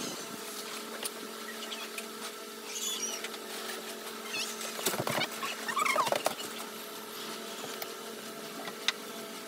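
A child's toothbrush scrubbing on teeth close to the microphone, over a steady hum, with a few short squeaky chirps around the middle.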